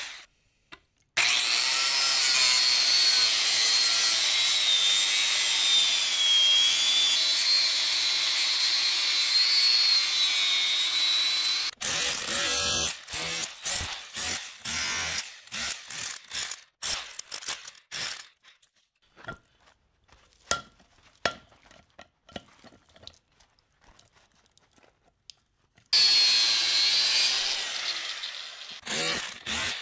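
A handheld power tool runs under load for about ten seconds, its high whine wavering in pitch as it works on scrap electric motors. Then comes a stretch of scattered clinks and knocks of metal parts, and the tool runs again for a few seconds near the end.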